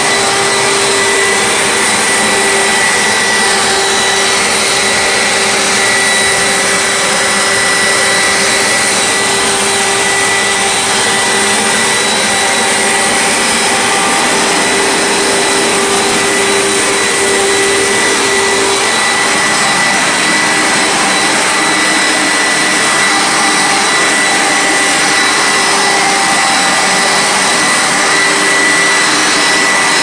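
Hoover SteamVac Widepath carpet cleaner running steadily, its motor giving a constant loud rush of air with a steady whine.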